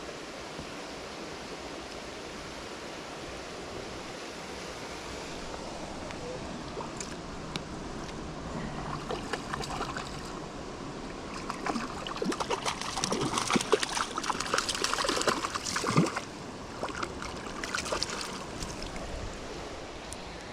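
River water running steadily, with a stretch of irregular splashing and sloshing through the middle.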